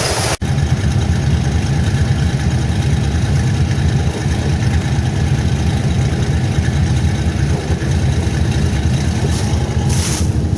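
Chevrolet 350 small-block V8 with its original Quadrajet carburetor idling steadily, a low even rumble. The sound drops out for an instant about half a second in, then carries on unchanged.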